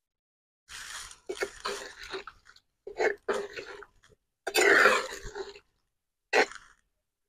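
Metal ladle stirring chicken gravy in a clay pot: wet slopping and scraping in several bursts, the longest about halfway through, and a short sharp one near the end.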